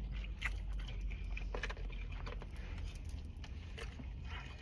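Quiet eating sounds: scattered small clicks and taps of a plastic fork against a takeout container, over a steady low hum.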